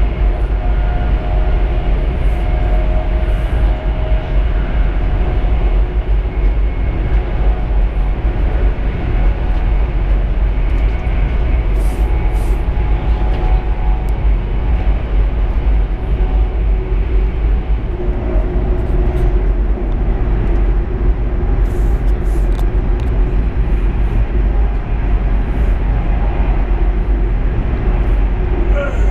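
Steady rumble of a high-speed train running at speed, heard inside the passenger carriage.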